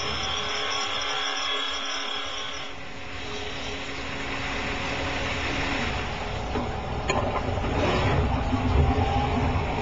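Chevalier SMART series surface grinder wheel grinding a convex profile on a brake component under flood coolant, a steady machine whine with coolant spray. The pitch changes about three seconds in. From about seven seconds a louder low rumble comes in, with a sharp click, as the wheel comes off the work.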